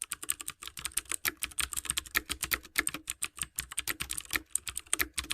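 Rapid, uneven clicking like typing on a keyboard, many small clicks a second.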